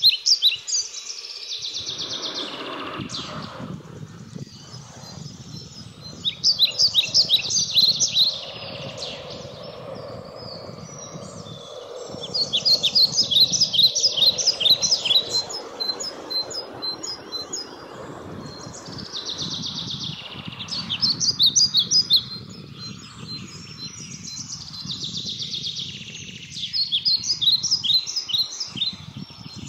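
Birdsong: a songbird repeating a short, rapid phrase of quick notes about every six to seven seconds, five times, with a second bird's thin single notes between phrases, over a steady low outdoor hum.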